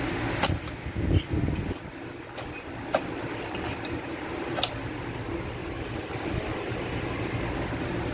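Metal tools clinking against engine parts during a teardown: a few sharp, ringing metallic clinks and some dull knocks over a steady fan-like hum.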